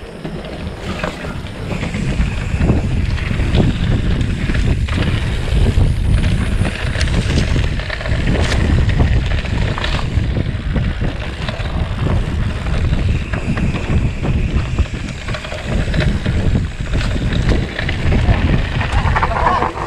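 Wind buffeting the microphone of a camera riding on a mountain bike, with knocks and rattles from the bike going over rough trail.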